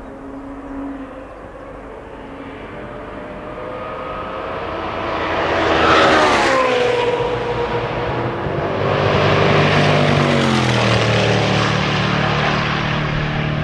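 Gumpert Apollo Sport's twin-turbo V8 growing louder as the car approaches, peaking about six seconds in as its pitch sweeps down past the listener. A second loud stretch follows, with the engine note falling in pitch again and then settling into a steady drone as the car pulls away.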